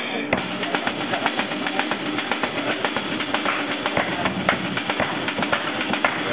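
Many people clapping their hands, a dense, steady patter of claps.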